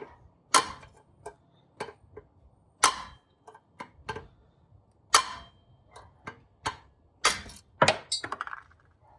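Hammer striking a socket set on a valve spring retainer to knock the valve keepers loose: five sharp strikes, two of them close together near the end, with lighter taps and clicks between.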